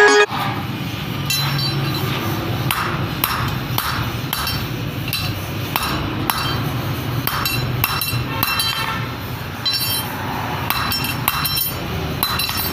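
Hammer blows on steel rod, ringing metal-on-metal strikes at an uneven pace of one or two a second, over a low steady hum.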